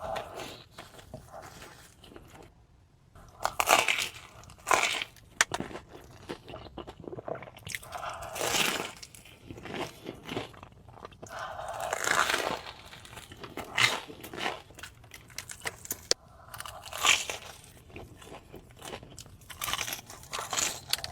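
Close-miked eating: bites into crunchy food, with crunches coming at irregular intervals between stretches of chewing.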